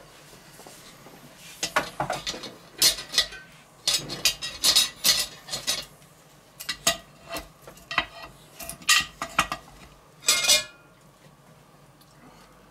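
A cast-iron Dutch oven being opened: irregular metal clinks and knocks from the iron lid and a lid lifter, ending in a short, rougher clatter about ten seconds in as the lid comes off.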